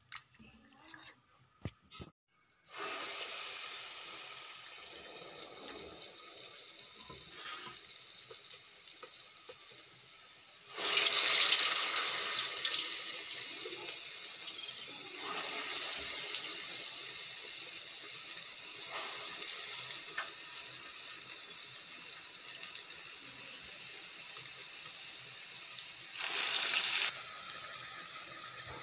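Vadai deep-frying in hot oil in a steel kadai, a steady sizzle that starts about three seconds in after a few faint clicks. The sizzle swells sharply louder about eleven seconds in and again near the end.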